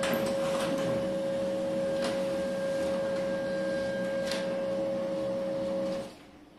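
Canon desktop printer running as it prints a page: a steady motor whine with three light clicks about two seconds apart. It stops suddenly about six seconds in, as the finished sheet comes out.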